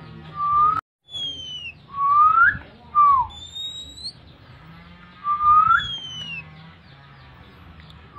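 Human whistling of a kacer (oriental magpie-robin) lure call: short, clean whistled glides, some rising and some falling, given in two groups with a pause of about two seconds between them. The sound cuts out briefly just before one second in. This is the kind of whistle meant to call a kacer in breeding condition.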